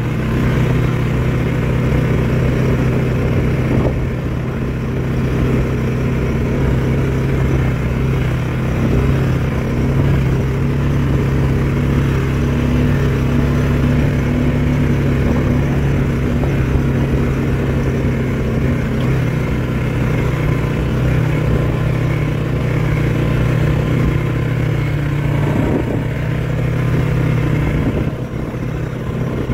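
Four-wheeler (ATV) engine running at a fairly steady speed while riding, its pitch holding even, with a brief drop in level near the end.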